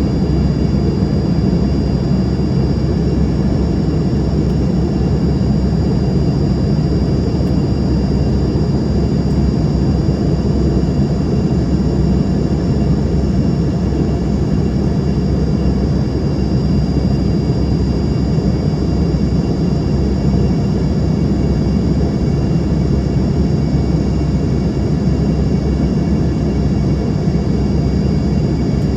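Steady cabin noise inside an Embraer ERJ-145 jet in flight: the rush of air and the drone of its rear-mounted Rolls-Royce AE 3007 turbofans, with a thin high whine held over it.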